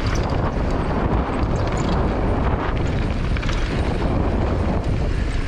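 Wind rushing over the action camera's microphone as a mountain bike rolls downhill on a dirt trail, with steady rumble from the tyres on hardpack and scattered small clicks and rattles from the bike.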